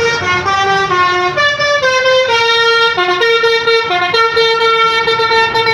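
Bus Basuri 'telolet' multi-tone horn playing a tune: quick stepping notes for about two seconds, then one long held note broken twice by a short dip to a lower note.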